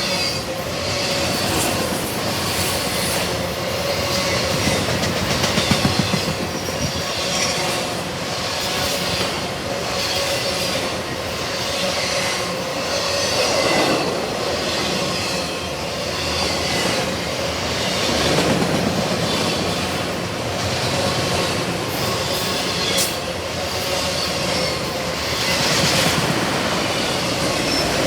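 Long freight train of autorack cars rolling past steadily, wheels clacking over rail joints, with wheel squeal coming and going.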